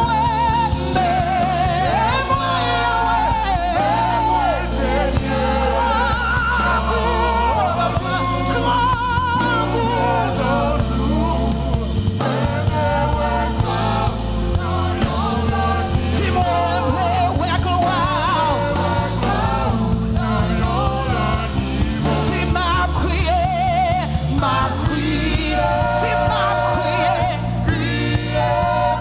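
Live gospel praise-and-worship music: sung melody with backing voices over bass, keyboard and drums, playing continuously.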